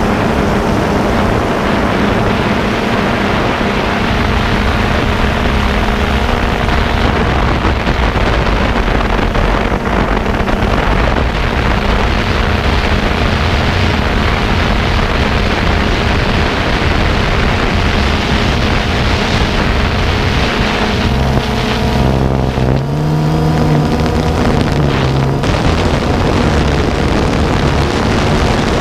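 Model aircraft's motor and propeller running steadily at high power, heard close up with wind rushing over the microphone. The motor's pitch shifts and steps a few times about three-quarters of the way through.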